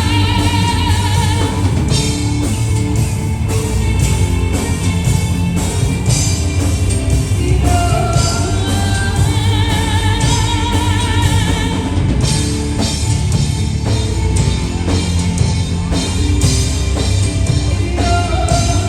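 Live rock band playing a song: a high sung vocal line with wide vibrato over a steady drum kit beat and heavy bass.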